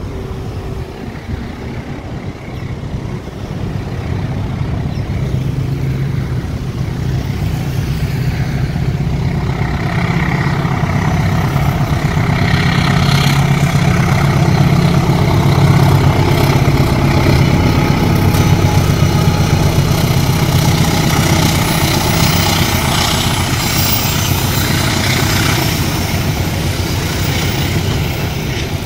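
Diesel locomotive hauling a train, its engine running steadily as it draws near and passes, loudest about halfway through, with wheel and rail clatter building from about ten seconds in.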